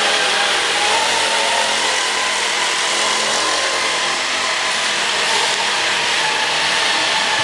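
A motor running steadily: a loud hissing rush with a faint whine that holds one pitch.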